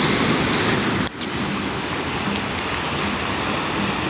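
Steady hiss of sea surf breaking on the shore. A single sharp click comes about a second in, after which the sound is slightly quieter.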